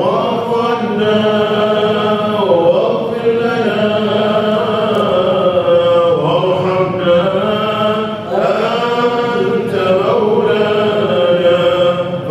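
Voices chanting Islamic dhikr (athkaar) together in long melodic phrases that glide up and down, a new phrase beginning every few seconds.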